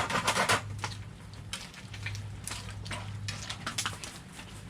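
Cooking utensils clicking and clattering against a pan while the pasta is worked, with a close cluster of clatters at the start and scattered single clicks after, over a steady low hum.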